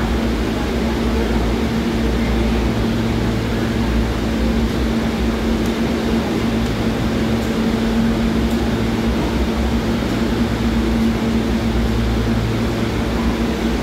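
New York City Subway train standing at the platform, its air-conditioning and on-board equipment humming: a steady drone with one constant mid-pitched tone over a low rumble.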